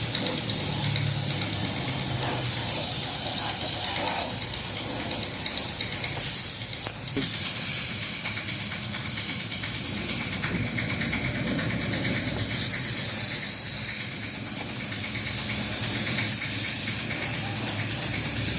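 Compressed-air spray gun hissing steadily as it sprays a mix of diesel and engine oil over a car's body.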